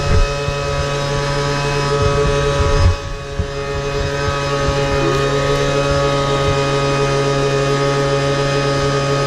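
Small engine of a rat smoker running steadily at a constant speed, pumping fumes into the burrows to flush the rats out. A brief thump about three seconds in.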